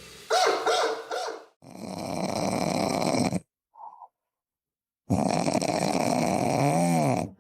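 A dog's voice: short pitched whining cries near the start, then two harsh, noisy stretches of about two seconds each, cut apart by sudden silence. The second stretch ends in a brief rising-and-falling whine.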